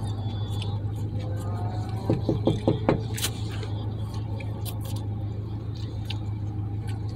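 Steady low hum of an idling pickup truck heard inside the cab, with small clicks of a plastic fork and food container and chewing. A brief murmured voice comes about two seconds in.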